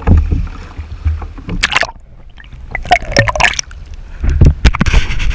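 Sea water sloshing and gurgling against the camera as it is held down at the surface beside the kayak, with scattered knocks and splashes from handling. The splashing grows busier near the end.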